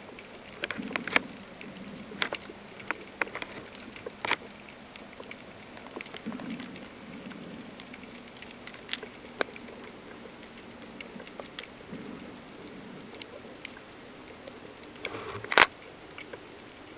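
Underwater sound picked up by a submerged camera: scattered sharp clicks and crackles at irregular intervals over a faint steady hum, with one louder click near the end.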